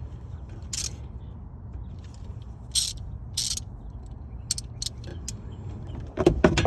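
Hand socket ratchet clicking in short spurts as it is worked on a brake caliper bolt, over a steady low hum, with a few loud metallic knocks near the end.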